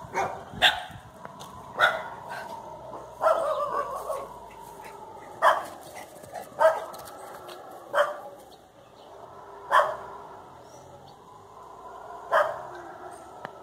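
Howler monkeys calling: a continuous, wavering roaring chorus with about eight short, loud, bark-like calls breaking through every one to three seconds.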